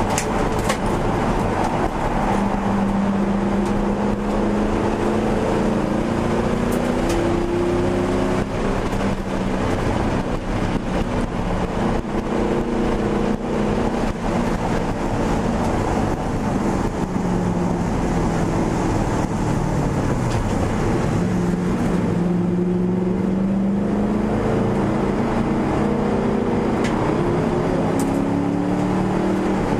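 1999 Ford Mustang GT's 4.6-litre V8 heard from inside the cabin at track speed, the revs rising and falling through corners and gears over wind and road noise. About two-thirds of the way in the engine note sinks for a few seconds, then climbs again.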